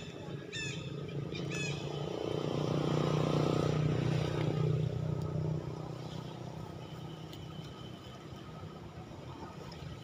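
A motor vehicle passing: a low engine drone swells to its loudest a few seconds in and then fades away. A bird chirps twice at the start.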